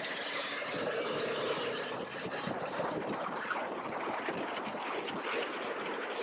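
Wind rushing over a helmet-mounted action camera's microphone on a moving Yamaha MT-07, with the motorcycle's parallel-twin engine note heard in the first second or so before it is buried under the steady wind.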